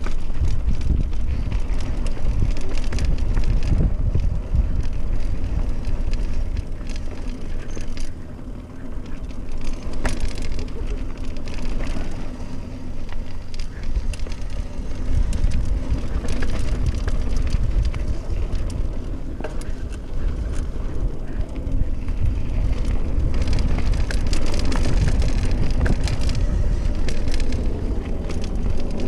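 Mountain bike riding fast down a dirt singletrack: heavy wind buffeting on the camera microphone, with the tyres crunching over dirt and a constant patter of clicks and knocks from the bike rattling over bumps.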